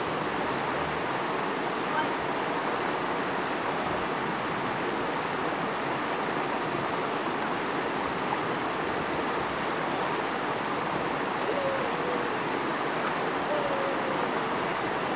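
Steady rushing of a shallow river flowing over rocks and stones.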